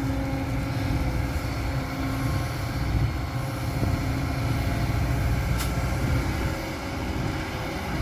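A heavy vehicle running steadily: a continuous low engine rumble with road noise.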